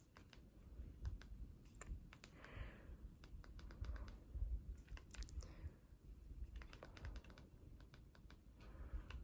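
Faint, irregular clicks of TV remote control buttons being pressed, several a second at times.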